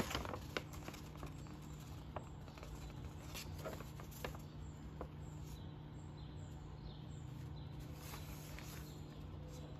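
Paper instruction leaflet being unfolded and handled: soft rustles and light crinkles, with a sharp crackle right at the start, over a steady low hum.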